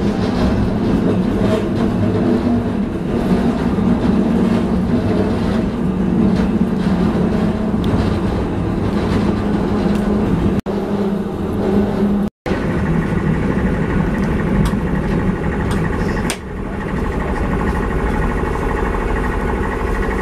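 Blackpool Railcoach tram running, heard from inside the saloon: a steady rumble of wheels on rail and motor hum, with a few sharp knocks. The sound cuts out for a moment a little past halfway.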